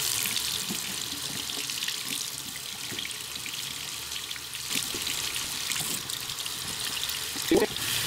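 Bathroom sink faucet running, a steady stream of tap water splashing over a small camera held in the flow and into the basin.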